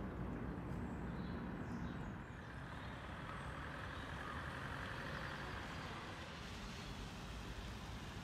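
Steady low rumble of street traffic, a little louder in the middle.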